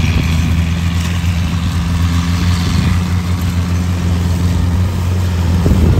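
Kubota rice combine harvester's diesel engine running at a steady speed, with a second combine's engine running alongside.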